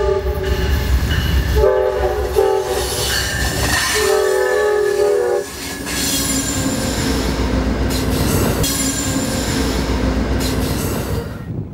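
Amtrak GE P42DC diesel locomotives passing at close range: the lead unit sounds its multi-note air horn in several blasts over the first five and a half seconds, the last the longest. Then the engines and wheels rumble steadily past and drop off near the end.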